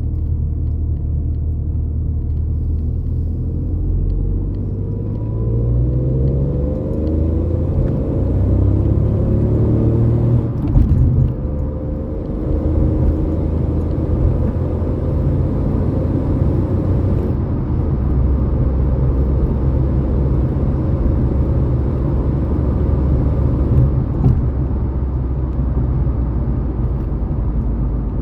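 Ford Fiesta EcoBoost car engine running under way, its note rising steadily for several seconds as it accelerates, with a short sharp sound about eleven seconds in, then settling to a steady running rumble.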